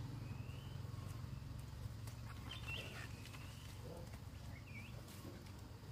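A small engine running steadily at a low pitch, with a few short bird chirps over it.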